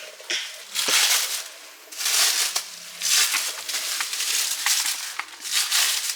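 Plastic packaging (bubble wrap and cling wrap) crinkling and rustling in repeated irregular bursts with small clicks, as it is handled and pulled off a new pannier rack.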